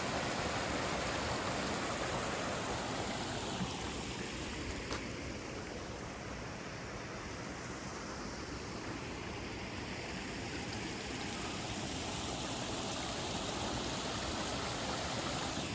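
Steady rush of river water flowing, a broad even hiss with no pauses.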